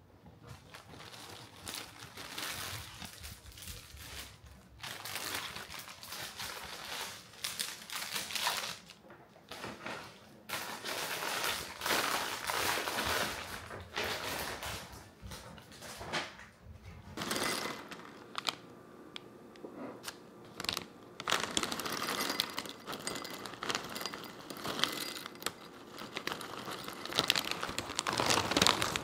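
Clear cellophane flower wrappers crinkling and rustling in irregular bursts as bouquets are handled and unwrapped.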